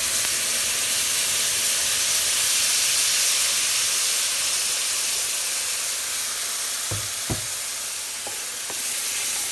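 Hot water sizzling as it hits a browned flour-and-oil roux in a hot skillet, a steady hiss that slowly dies down as the pan cools. Two sharp knocks about seven seconds in.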